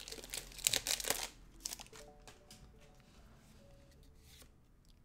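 Foil Pokémon booster pack wrapper crinkling and tearing open, loud for about the first second. Then soft background music with short plucked-sounding notes.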